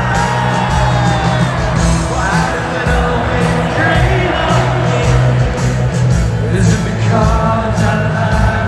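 Rock band playing live and loud in a stadium, with singing and whoops and shouts from the crowd over the music.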